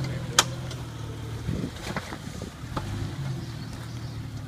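1997 Jeep Grand Cherokee ZJ engine running steadily at low revs, with a loud sharp click just under half a second in and a few fainter clicks around two and three seconds in.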